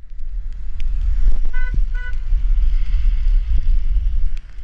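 Wind buffeting the microphone of a camera riding along behind a cyclist on a wet road, a loud steady rumble. About a second and a half in, two short horn toots sound close together.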